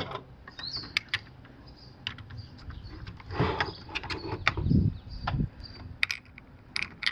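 Plastic housing parts of a Polaris Quattro pool cleaner being handled and fitted together by hand: scattered clicks and knocks, with a few heavier bumps in the middle.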